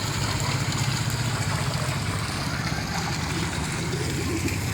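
Steady rush of water pouring from a fish-pond waterfall, with a low rumble underneath.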